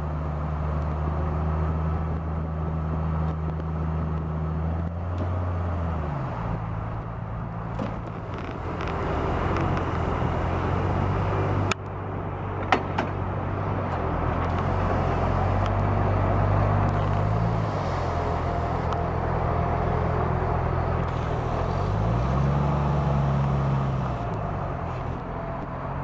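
Diesel engine of a Junttan PM 25H pile-driving rig running under hydraulic load, its engine speed dropping, then rising and falling again as the rig hoists and positions a concrete pile, with no hammer blows. Two brief sharp knocks come around the middle.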